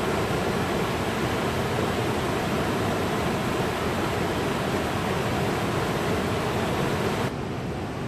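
River rapids rushing over rock ledges: a steady, even rush of water. About seven seconds in it cuts suddenly to a quieter, duller flow.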